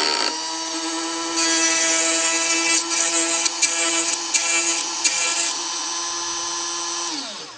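Granberg 12-volt chain grinder's small electric motor running at a steady pitch. From about a second and a half in to about five and a half seconds in, a harsh grinding comes as the stone works a chainsaw cutter tooth into the gullet. Near the end the motor is switched off and winds down in falling pitch.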